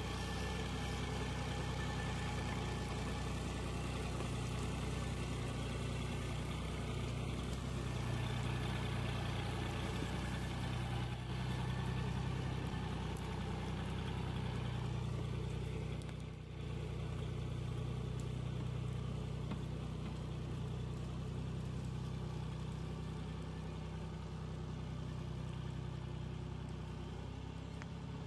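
Loaded log truck's engine running steadily, an even low drone with a brief dip in level about halfway through.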